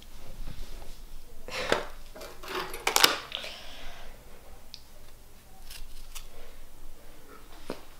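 A small metal knife scraping the cream filling off Oreo cookie halves: a few short scrapes and clicks, the loudest about one and a half and three seconds in.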